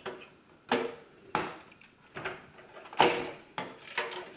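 Graphics card being worked up out of its PCIe slot with the black release tab held down: a string of sharp clicks and knocks, the loudest about three seconds in.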